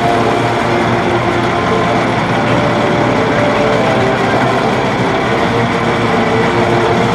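Heavy multi-axle military truck's diesel engine running steadily at a constant loud level, with a faint steady whine over the engine noise.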